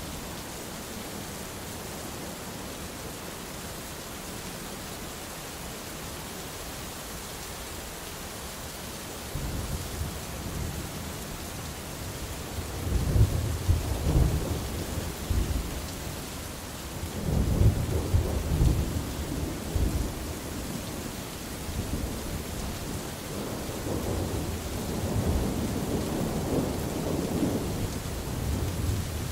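Steady rain falling, with thunder coming in as a low rumble about a third of the way through. It rolls in two loud peaks near the middle, then rumbles on more softly.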